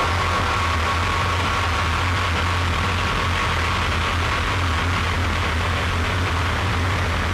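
Harsh noise wall: a dense, steady hiss of distorted static over a low droning hum, with a thin high tone at the start that fades away.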